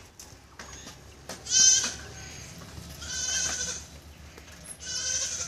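A goat bleating three times, short high-pitched calls about every one and a half to two seconds, the first the loudest.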